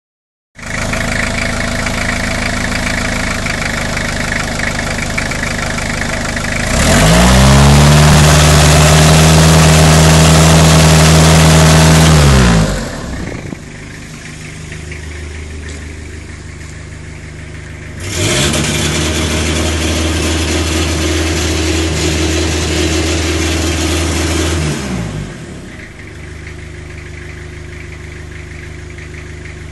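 Toyota Hiace van engine idling, then revved up twice, each time held at high revs for about five seconds before dropping back to idle.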